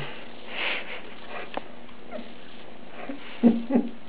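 Young Maine Coon kitten giving two short cries in quick succession near the end, after a short breathy noise about half a second in.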